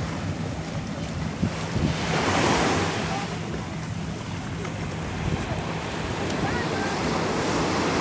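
Surf washing onto a sandy beach, swelling about two seconds in and again near the end, with wind buffeting the microphone.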